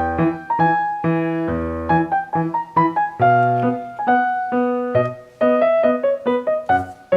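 Background music: a piano-style keyboard playing a melody of separate struck notes over a bass line.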